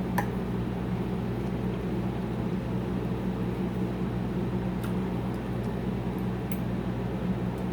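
A steady mechanical hum, like a fan or other running appliance, with a few faint light clicks over it.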